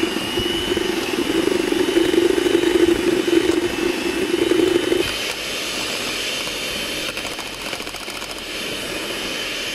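Electric hand mixer running steadily with a high whine, its beaters whipping cold cream in a plastic jug. About five seconds in the lower hum drops away and the sound goes on more evenly.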